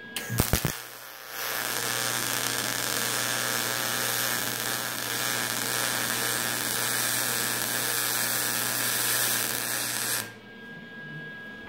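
Aluminum MIG welding with a Magnum 100SG spool gun: after a few clicks, the arc runs with a steady, smooth hiss over a low hum for about nine seconds, then cuts off abruptly. The even sound, with no spatter crackle, is the sign of a well-set aluminum arc.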